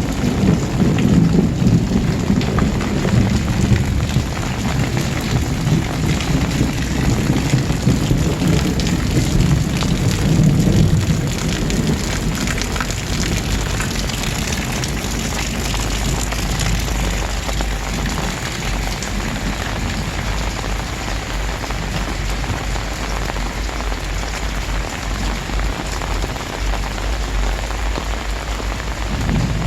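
Very heavy rain pouring down steadily. A low rumble sits under it for the first ten seconds or so, then eases off, leaving the rain's steady hiss.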